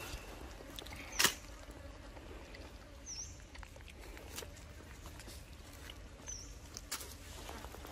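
Young macaque scrambling about on a log over dry leaf litter, making a few sharp clicks and light rustles, the loudest about a second in. Two short high chirps come partway through.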